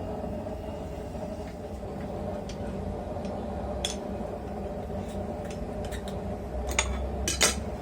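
Light metallic clinks and taps of steel pieces being set and shifted in an anvil hardy-hole jig, with a few sharper clinks near the end, over a steady low hum.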